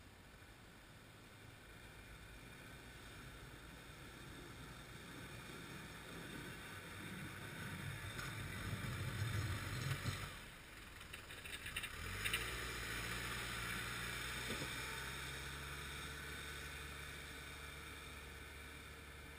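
Diesel engine of a snow-plowing loader working. It grows louder to a peak about nine to ten seconds in and dips briefly, then there is a clatter. From about twelve seconds in it settles into a steady hum that slowly fades.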